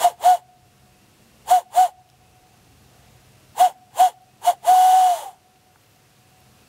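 Hand-cupped barred owl call, blown across the knuckles: breathy, owl-like hoots on one pitch in the barred owl rhythm. There are two short hoots, two more, three quick ones, then a longer drawn-out hoot that drops in pitch at its end.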